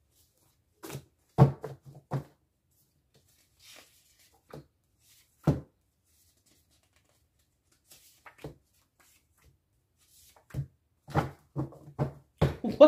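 Paper message cards being handled, shuffled and laid down on a table: scattered short taps and rustles with quiet gaps between, the sharpest about a second and a half in and a quicker run of them near the end.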